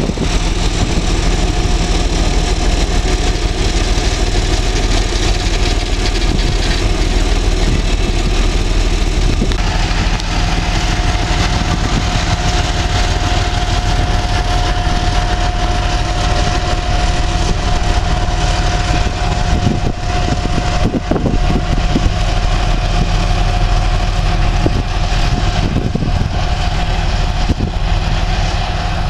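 2M62 diesel locomotive of a DTL1 suburban train running under way with its coaches, its two-stroke diesel engines giving a loud, steady drone. A steady high whine joins about a third of the way in.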